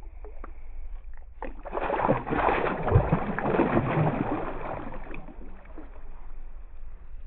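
A released bass thrashing and kicking away at the surface right beside the boat, throwing up a burst of splashing water that is loudest about three seconds in and then dies down.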